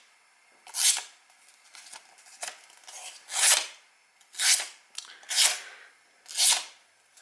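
Razor-sharp blade of a handmade O1 carbon-steel Scagel-style knife slicing slivers off the edge of a sheet of paper as a sharpness test: a series of short hissing cuts about a second apart.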